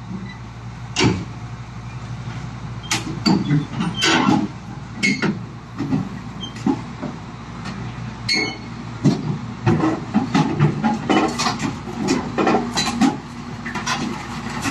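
Excavator engine running with a steady low hum, under frequent irregular metallic clanks and knocks, several a second.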